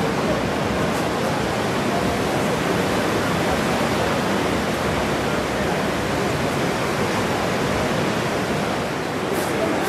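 Breaking ocean surf: a steady, even wash of noise with no distinct events.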